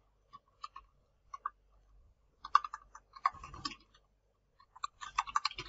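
Computer keyboard typing: a few scattered key clicks, then quick runs of keystrokes about two and a half seconds in and again near the end as a search word is typed.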